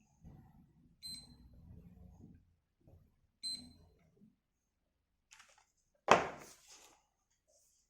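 Digoo DG-AN0211 weather-station alarm clock giving two short, high electronic beeps as the buttons on its back are pressed, with handling noise around them. About six seconds in comes a sharp knock, the loudest sound.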